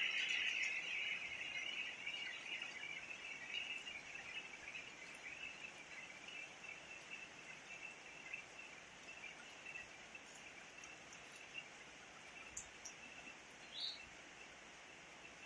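Rural outdoor ambience: a steady, faint, high-pitched hiss that fades over the first several seconds, with a single short rising bird chirp near the end.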